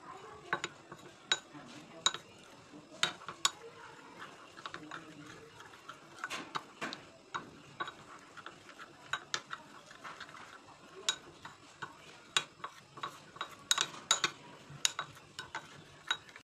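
Metal spoon stirring custard powder into milk in a glass bowl, clinking sharply and irregularly against the glass, sometimes several times a second and most often near the end.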